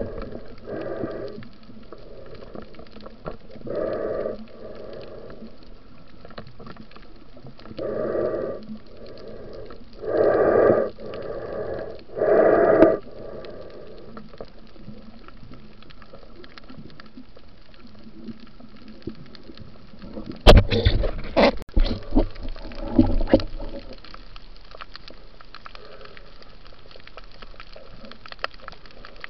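Muffled water sounds heard through an underwater camera housing: five short gurgling rushes of water and bubbles in the first half, then a cluster of sharp knocks and clicks about two-thirds of the way in, over a steady hiss.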